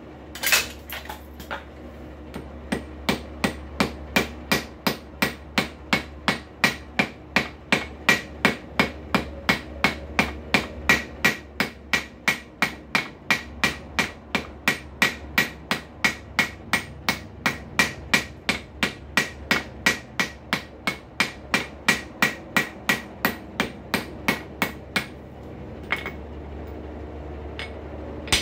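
Hand hammer striking steel in a steady rhythm of about two ringing blows a second, forging a rivet. A single blow comes first, then the regular hammering stops near the end and two more blows follow.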